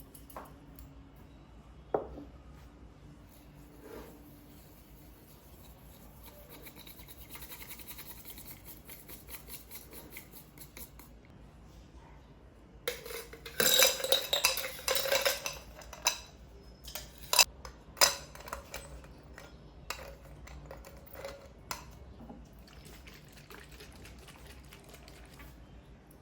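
Dishes and cutlery clinking and clattering, with scattered single knocks and a dense burst of clatter about halfway through.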